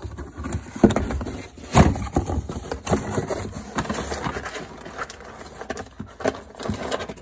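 Irregular knocks, clatter and rustling of rummaging in a low cupboard for cat food, with the cupboard door being moved. The two loudest knocks come about one and two seconds in.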